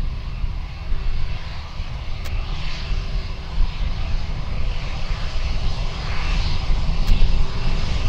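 An Airbus ACJ319's twin jet engines running at idle as the aircraft taxis toward the listener: a steady rumble with a hissing whine that swells and fades, growing a little louder toward the end.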